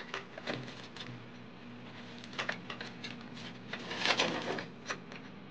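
Light clicks and scrapes of a Gigabyte AORUS GC-WBAX210 PCIe Wi-Fi card being lined up and pushed into a motherboard slot, with a longer scraping rub about four seconds in.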